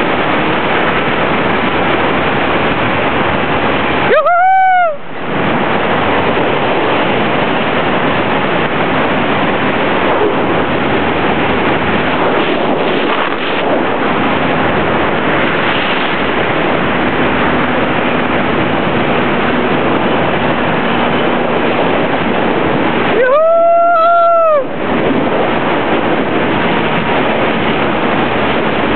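Steady loud rush of wind over the microphone during a fast zipline descent, broken twice by a short high whooping cry that rises and falls, about four seconds in and again near the end.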